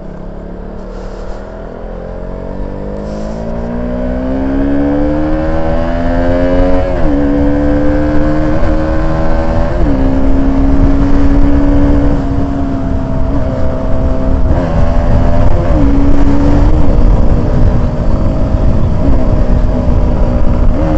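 Motorcycle engine heard from the rider's seat, rising in pitch as it accelerates for about seven seconds, then dipping briefly a few times at gear changes and settling to a steady cruise.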